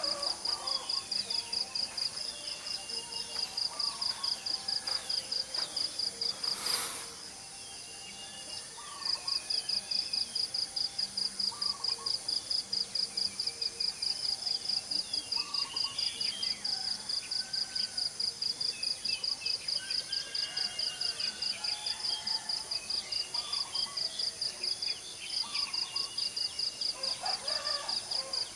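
Morning chorus of small birds calling in short scattered chirps and whistles over a steady, high-pitched chirping repeated about four times a second. The rapid chirping breaks off about seven seconds in and resumes two seconds later. A single sharp click comes near seven seconds.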